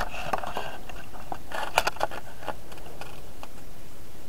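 Steady hiss with short clicks and brief bursts of crackle, clustered near the start and again about two seconds in.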